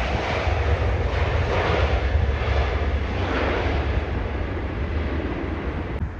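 Jet airliner on its landing approach going past, a loud engine roar with deep rumble that slowly fades, then breaks off abruptly about six seconds in.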